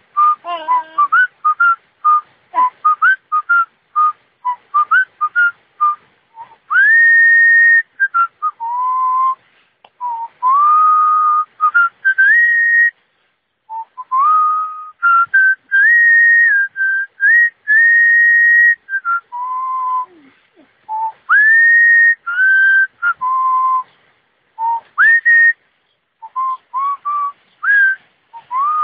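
A person whistling a melody in a single clear tone. It opens with quick short notes, then moves to longer held notes, many of them slid up into from below, with short breaks between phrases.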